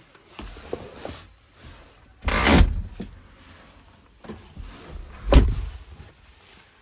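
Tata Punch car doors being opened and shut: two loud noises, one about two seconds in and a heavier, deeper thump about five seconds in, with small knocks between them.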